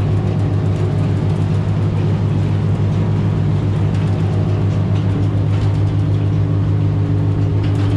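Aluminum spud boat's engine running steadily at speed, a constant low drone heard inside the wheelhouse over the rush of water along the hull.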